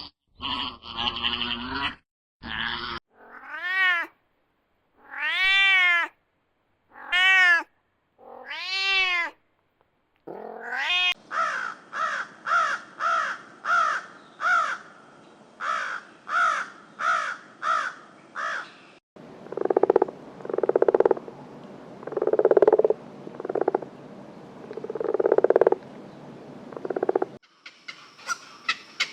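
Farm animal calls from several animals in turn: four drawn-out calls that rise and fall in pitch, then a run of quick repeated calls about two a second, then a few lower calls.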